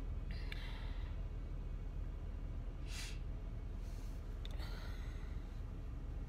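A woman sighing and sniffling while crying, with three audible breaths or sniffs spread through the pause.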